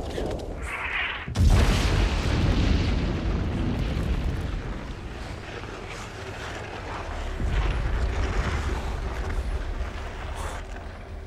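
Artillery shell explosions in a film battle soundtrack: a sudden heavy blast about a second and a half in, then a long, deep rumbling decay. A second rumbling blast swells up a little past the middle.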